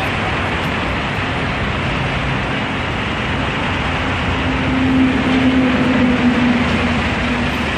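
An OM VT4-20NS CNC vertical lathe, built in 1987, running with a loud, steady mechanical noise. A steady hum comes in about halfway through and fades near the end.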